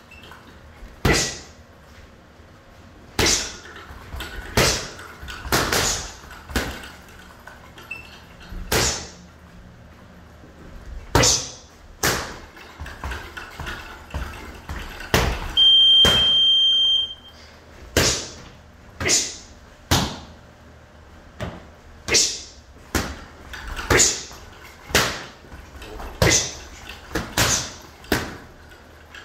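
Boxing gloves smacking into focus mitts: sharp, echoing pops, thrown singly and in quick combinations of two or three, with short pauses between combinations. About halfway through, a high electronic beep sounds once for about a second and a half.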